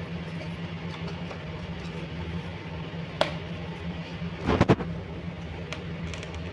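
Small hard objects being handled: one sharp click about three seconds in, then a quick cluster of louder knocks and clacks a little later, over a steady low hum.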